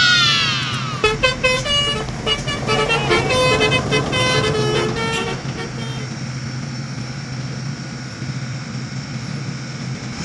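Indonesian bus 'telolet' musical horn: a falling sweep, then a quick run of short notes at stepping pitches for about five seconds before it stops. A steady diesel-bus engine hum runs underneath and carries on alone afterwards.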